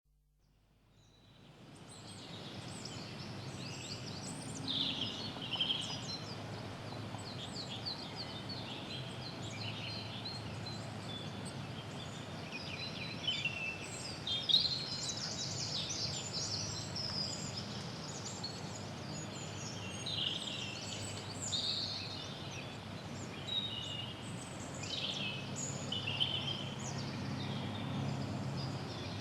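Early-spring woodland ambience: many songbirds singing and calling at once, short chirps and trills overlapping throughout, over a steady low background noise. It fades in over the first couple of seconds.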